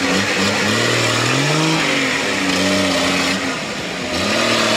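Engine of a Nissan off-road trial truck revving hard under load as it claws out of a dirt hole. The revs climb about a second in, hold, then fall away and pick up again near the end.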